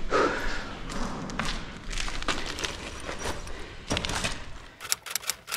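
Footsteps crunching and thudding over grit and debris on a concrete floor. Near the end a quick run of sharp clicks begins.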